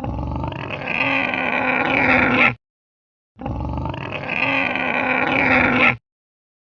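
Cartoon dinosaur roar sound effect for a Gojirasaurus, played twice. Each roar is a rough, growling bellow of about two and a half seconds that gets louder toward its end and then cuts off abruptly, with a brief silent gap between them.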